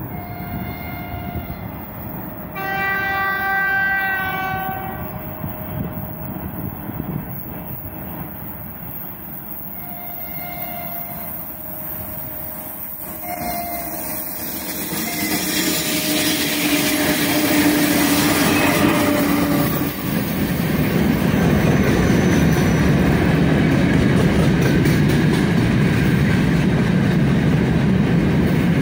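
Horn of a pair of 3ES5K 'Ermak' electric freight locomotives: a short toot, a longer blast about three seconds in, and two more short toots near ten and thirteen seconds. The train then grows louder as it approaches, the locomotives pass close about twenty seconds in, and a long string of gondola wagons rolls by with steady wheel noise on the rails.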